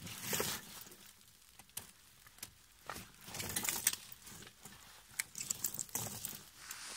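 A Thule König XG-12 Pro snow chain being pulled over a car tyre by hand: irregular bursts of rustling and crunching with light clinks of chain links.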